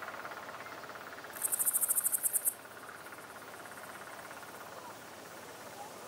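An insect stridulating in grass: a very high, fast trill of about ten pulses a second that starts about one and a half seconds in and lasts about a second. Under it, a steady, faint pulsing chirr of more insects runs on.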